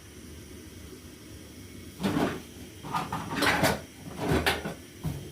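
A small metal cooking pot (sufuria) being handled and set down, with four or five short knocks and scrapes starting about two seconds in.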